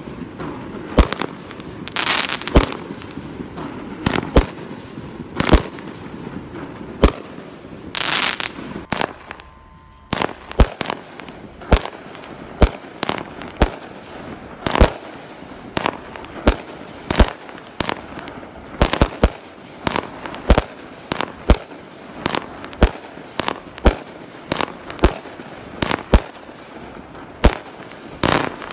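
Consumer firework cakes firing: sharp shots one after another, about one to two a second. The Zoot Suit cake fires its last shots, and after a short lull about ten seconds in a Rock Roll cake starts its steady volley.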